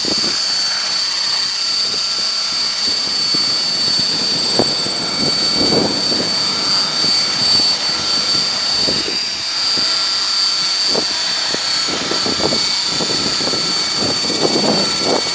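Belt-CP electric RC helicopter hovering and manoeuvring, its motor and rotor giving a steady high whine, with gusts of wind buffeting the microphone.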